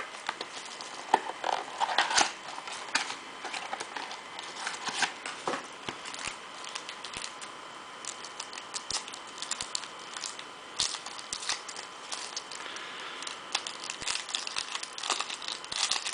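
Foil and clear plastic wrapping of a trading-card pack crinkling and being torn open by hand, a steady run of irregular sharp crackles and clicks.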